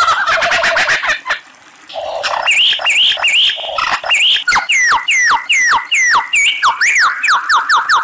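Lyrebird song: a fast rattling trill that breaks off about a second in, then, after a brief pause, a run of loud, clear whistled notes, mostly sweeping downward, repeated about two a second and coming faster near the end.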